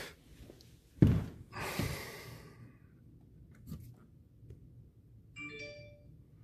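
Handling noise as the handheld camera is moved: a single sharp knock about a second in, followed by a breathy rustle, then low room tone with a brief faint pitched sound near the end.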